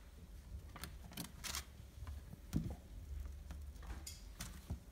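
Russian Blue kitten's claws scratching and tapping on a plastic pet carrier: scattered light clicks and short scrapes, with one louder knock about two and a half seconds in.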